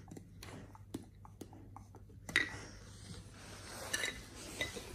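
Alaskan Malamute mouthing and licking at a hard plastic treat cup, teeth and paws clicking and knocking against the plastic in scattered small taps, with a few louder knocks about two and four seconds in.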